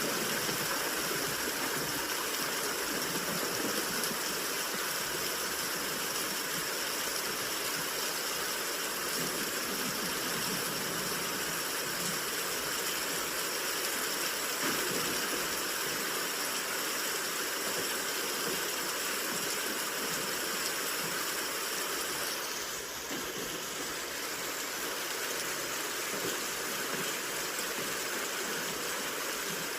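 Steady rain hiss blended with white noise. The hiss changes slightly and drops a little in level about three quarters of the way through.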